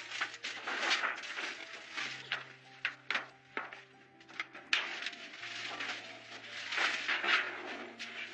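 Background music with a low held bass note that shifts pitch twice, over irregular rustling and scraping noise and a few sharp knocks from large panels being handled against log walls.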